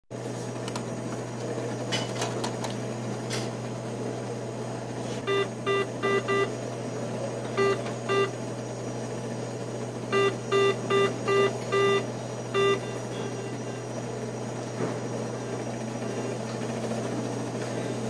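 ATM keypad beeping as buttons are pressed: four quick beeps, then two, then five and a last single one, all at the same pitch. A steady low machine hum runs underneath, with a few faint clicks in the first seconds.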